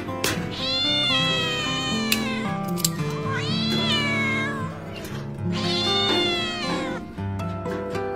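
A kitten crying in distress: three long, drawn-out meows, each sagging in pitch at its end. Guitar music plays underneath, and two sharp clicks fall between the first and second cries.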